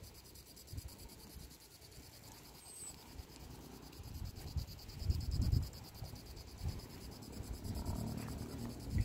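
A steady, high insect chorus trilling with a fast, even pulse. Low rumbles of wind on the microphone come and go, strongest about five seconds in.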